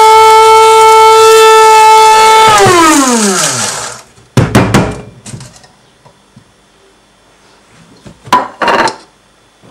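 Small electric coffee grinder running with a steady high whine as it grinds roasted coffee beans. About two and a half seconds in it is switched off and the motor winds down, its pitch falling away. It is followed by a few clattering knocks as the grinder is handled and its lid taken off.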